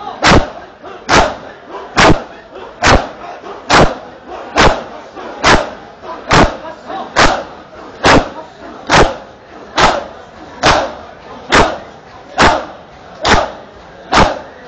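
A crowd of bare-chested mourners beating their chests with their hands in unison (matam), each beat a loud, sharp slap at a steady pace of a little more than one a second. Crowd shouting fills the gaps between the beats.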